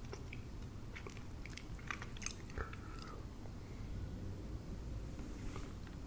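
A person chewing spicy enoki mushrooms close to the microphone: soft, wet clicks and crackles of chewing, busiest in the first three seconds and sparser after.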